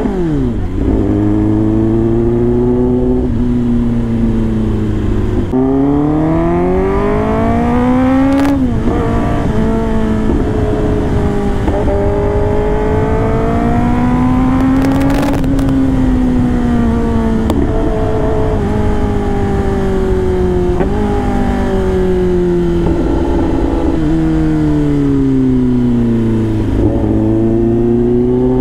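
Kawasaki ZX-10R inline-four engine under way, its note rising and falling with the throttle and dropping suddenly at gear changes, over a steady rush of wind and road noise. Two short sharp clicks come about a third and halfway through.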